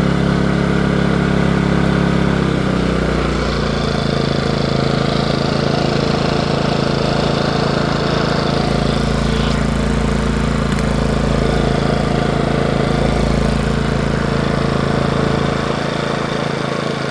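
Westinghouse iGen2550 inverter generator's engine running steadily. Its engine speed drops about three seconds in and then holds at the lower pitch.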